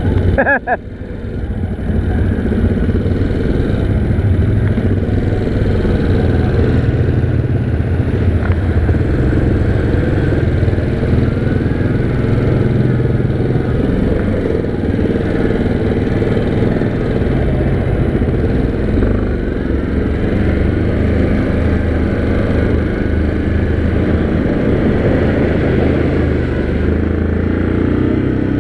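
ATV engine running under way on the trail, holding a steady note with small rises and falls in engine speed. It dips briefly about half a second in.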